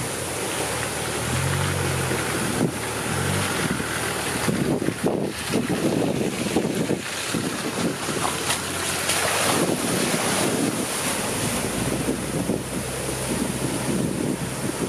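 Land Rover Discovery wading through a flooded track: its engine note is heard for the first few seconds and then fades, under a steady wash of churning, sloshing water. Wind rumbles on the microphone in uneven gusts.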